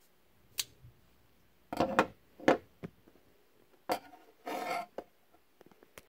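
Boker Plus Squail Junior linerlock folding knife being handled: a series of sharp clicks and knocks, a short scraping rub about four and a half seconds in, and a few light ticks near the end.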